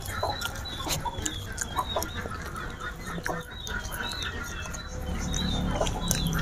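Animal calls: many short high chirps, with scattered sharp clicks throughout.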